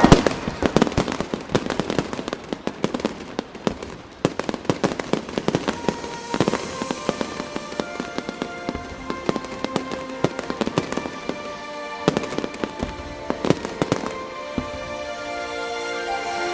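Fireworks going off in quick succession, many sharp bangs and crackles overlapping, with music playing underneath. Near the end the bangs thin out and the music comes forward.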